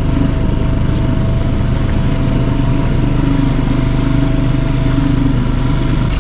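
Small outboard motor on a dinghy running at a steady, even pitch.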